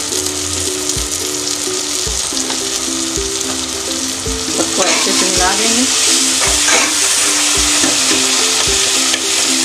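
Onion-tomato masala frying in oil in an aluminium pressure cooker, a steady sizzle, as a perforated ladle stirs it through. Background music with a steady beat runs under it.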